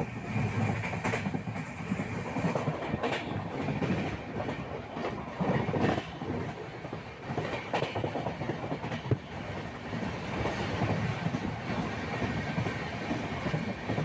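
Passenger train running along the track, heard from inside the carriage: a steady rumble of wheels on rail with a few sharp clacks over the rail joints.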